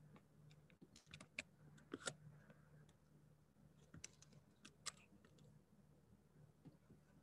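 Faint clicks of a computer keyboard and mouse, a few in a cluster about a second in and another few about four to five seconds in, over a faint steady low hum.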